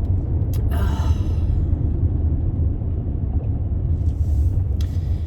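Steady low road and engine rumble inside a moving car's cabin, with a few short breaths or sniffs about half a second in, about a second in, and near the end.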